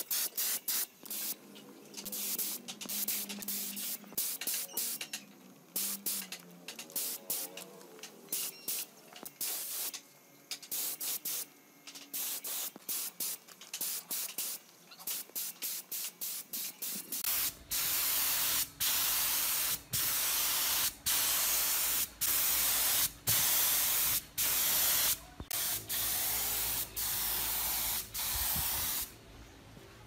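Compressed-air paint spray gun spraying in rapid short hissing bursts. About halfway through the bursts become longer, about a second each, with a steady low hum underneath.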